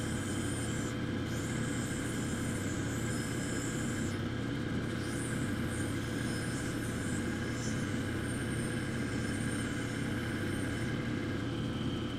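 Cabochon grinding machine's motor running steadily while dichroic fused glass is pressed against its wet diamond wheel to rough out the shape; a high grinding hiss comes and goes over several passes with short breaks, stopping near the end.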